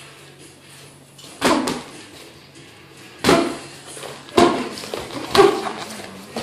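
Boxing gloves smacking as punches land in sparring: four sharp hits spaced out a second or two apart, the last two the loudest.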